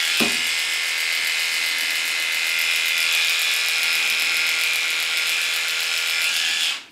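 Cordless dog clippers with a number 10 blade running with a steady buzz as they shave the short hair on a poodle's muzzle, then switched off abruptly near the end.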